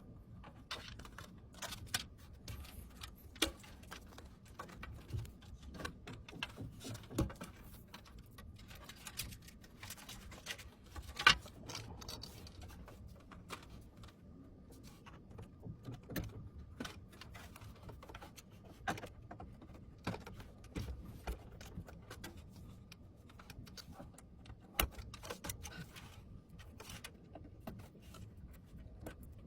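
Scattered light clicks and taps of hardware parts being handled and fitted during a PC build, irregular and unhurried, with one sharper click about eleven seconds in.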